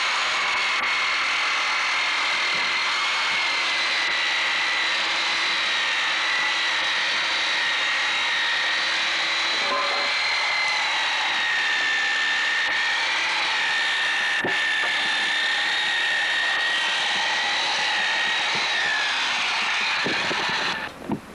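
A motor-driven tool running steadily with a high whine, cutting off abruptly near the end.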